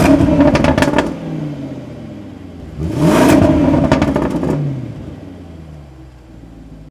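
The 2022 Land Rover Defender V8's supercharged 5.0-litre V8 is blipped twice through its exhaust, once at the start and again about three seconds in. Each rev climbs sharply and falls back to idle, and a rapid run of crackles comes as the first rev drops away.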